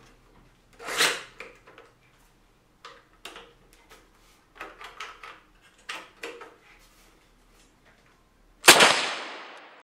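Plastic clicks and clacks of a 3D-printed toy PPSh-41 being handled, with its bolt cocked and its trigger worked. A louder clack comes about a second in. Near the end comes one loud sharp crack, the spring-driven bolt snapping forward, which rings away over about a second.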